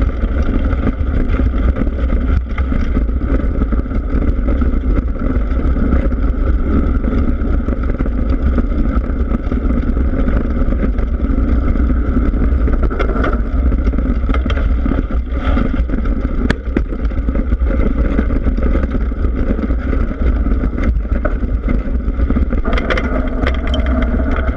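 Mountain bike rolling fast along a dirt and gravel trail, heard from a camera on the front suspension fork: a steady rumble of the front tyre on the ground mixed with wind on the microphone, with a few sharp knocks and rattles over bumps.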